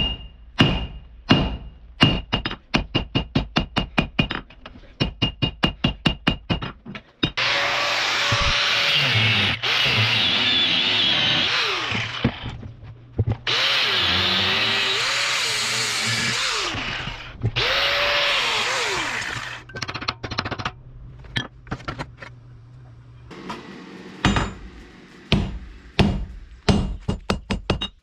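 Hand hammer striking hot steel on an anvil in quick, regular blows, the anvil ringing with each strike. About seven seconds in, an angle grinder cuts steel in three runs of a few seconds each, its whine dipping and recovering as the disc bites. After a short lull, hammer blows on the anvil resume near the end.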